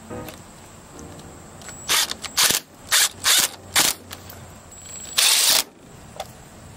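RIDGID cordless impact driver driving screws into a railing bracket: a run of short bursts about two to four seconds in, then one longer burst just after five seconds.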